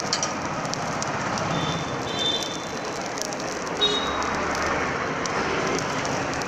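Egg dosa sizzling on a hot flat griddle, a steady crackling hiss, with a few short high chirps over it.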